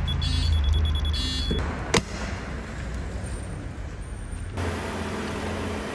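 Digital torque wrench beeping in quick high pulses as a wheel bolt nears its target torque, stopping about a second and a half in. A single sharp click follows about two seconds in, then a steady low hum.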